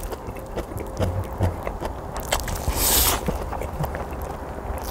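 Someone eating spicy ramen mixed with Chapagetti noodles: a short slurp of noodles about halfway through, between chewing and small mouth clicks.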